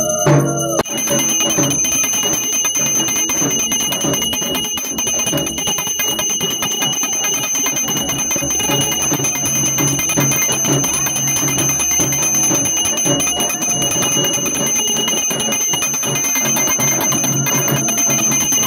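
Puja bells ringing rapidly and without a break, a dense jangle of quick strokes, after a short bit of music that stops about a second in.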